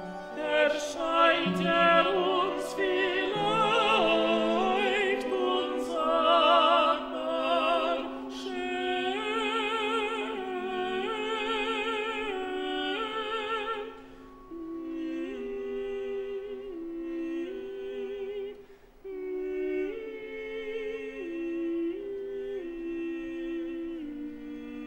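Operatic singing from a contemporary opera: a voice sings with strong vibrato, loudest in the first half, then gives way about halfway through to a softer, steadier line over a held low note.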